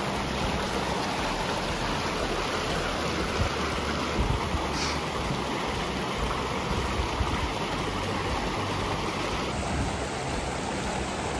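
Steady rushing noise, even across high and low pitches, with no voices.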